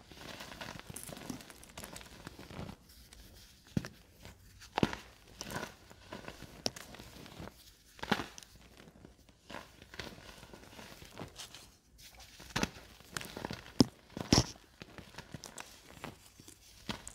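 Dried baking soda reforms, set hard after drying for over a week, crunched and crumbled by hand: sharp cracks at irregular intervals with softer crumbling and powder rustling between them.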